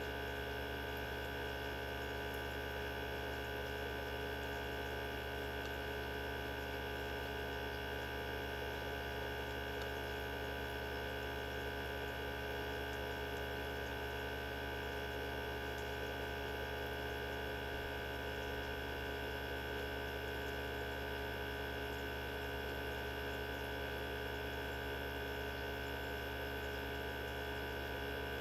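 Mini benchtop centrifuge running at a constant speed, its small motor and rotor giving a steady hum made of several unchanging tones, while it spins small tubes of blood to separate it.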